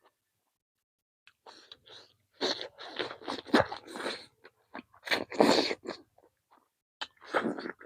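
Close-up eating sounds: crunching and chewing of chicken, with short clusters of crisp crunches in two bursts, separated by a brief pause.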